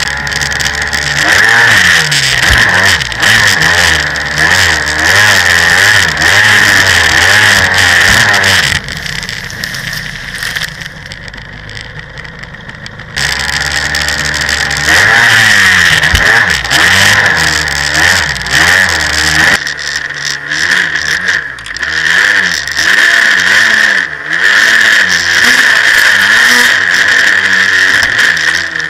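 Jetski engine running hard, its pitch rising and falling over the rush of water and spray. About nine seconds in it eases off and runs quieter for about four seconds, then revs back up.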